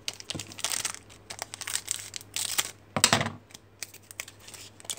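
A foil trading-card pack wrapper crinkling and cards being handled. It comes as a series of short rustling bursts, the loudest about three seconds in.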